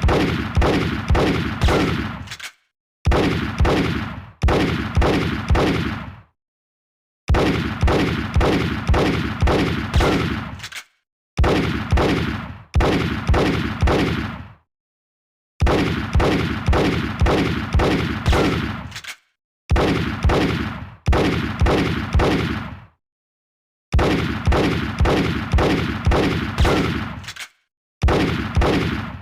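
Revolver gunshot sound effect: quick successive shots, about two a second, in strings of three to seven, each string followed by a brief gap of silence.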